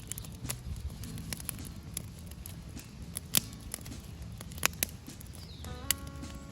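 Knife cutting raw beef liver on a board: scattered sharp taps of the blade against the board over soft tearing sounds. Background music comes in near the end.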